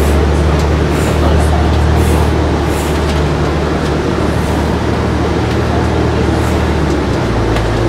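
Steady running noise of a moving Hong Kong MTR train heard inside the carriage: a continuous rumble with a strong low hum, which shifts lower near the end.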